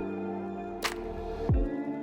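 Background music with a slow, steady beat: deep low thumps and sharp high ticks over held chords.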